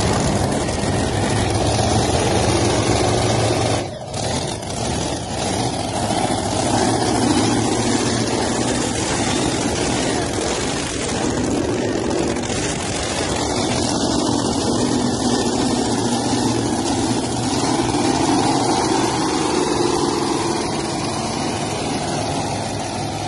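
The engines of a multi-engine modified pulling tractor running, loud and steady, with a brief dip in level about four seconds in.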